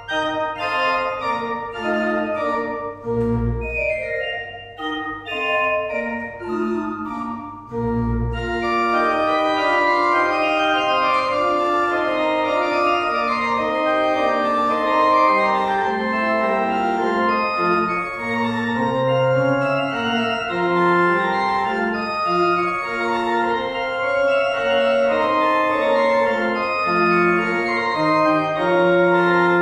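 Church pipe organ playing a closing voluntary in sustained chords. Deep pedal notes sound about three and eight seconds in, and from about eight seconds in the sound fills out and grows louder.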